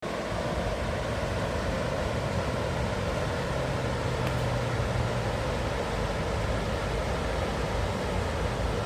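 River water rushing steadily, an even, unbroken noise of flowing water.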